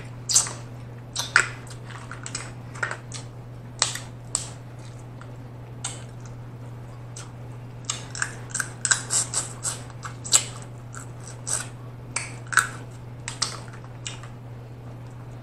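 Close-miked eating sounds: snow crab legs picked apart by hand, with scattered sharp clicks and cracks of shell and wet mouth smacks while chewing crab meat, thickest about eight to ten seconds in. A steady low hum runs underneath.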